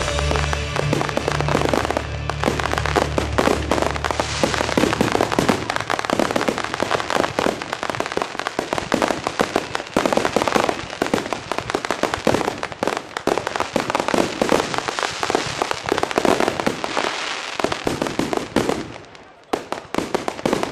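Fireworks display: a dense, continuous barrage of bangs and crackling from many shots going off in quick succession, thinning out and quietening near the end. Music with a low bass line plays under it for the first few seconds.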